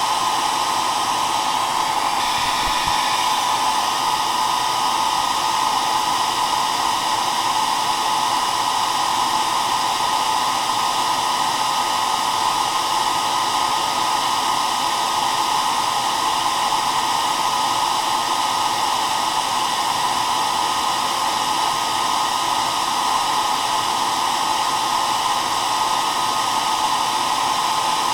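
Hair dryer running continuously at one steady setting: an even rush of blown air with a constant motor whine, unchanging throughout.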